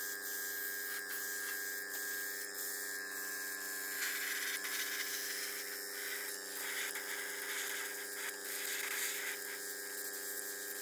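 An airbrush compressor runs with a steady hum, under the hiss of air from an airbrush as it sprays paint. The hiss swells and eases as the spraying goes on.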